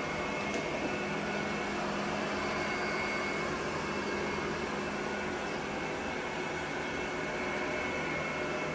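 Robot vacuum cleaner running, a steady motor whir with a thin high whine over it.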